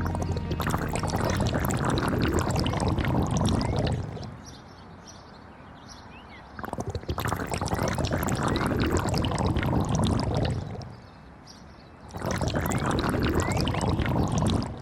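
Something loose being poured, in three spells of three to four seconds each, with quieter gaps between; the flow is a dense, crackly rush.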